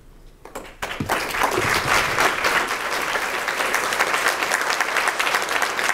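Audience applauding: a few scattered claps, then full, steady applause from about a second in.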